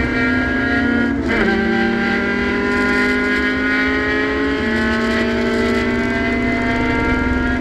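Race car engine under hard acceleration, heard from inside the cockpit: its pitch climbs steadily, drops sharply with an upshift just over a second in, then climbs again, with a smaller step down past halfway.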